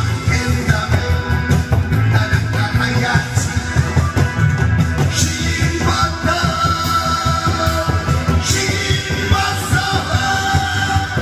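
A man singing a Korean trot song into a microphone over a loud backing track with a steady beat, amplified through a PA system.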